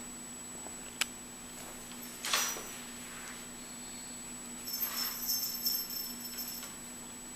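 A small bell jingling lightly for about two seconds past the middle, with a sharp click and a brief rustle before it.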